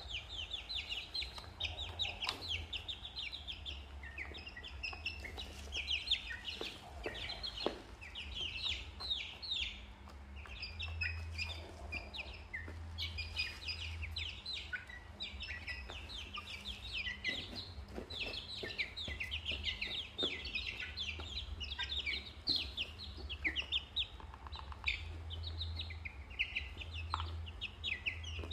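A group of young chicks and ducklings peeping constantly, many short, high chirps overlapping in quick succession, over a low steady hum.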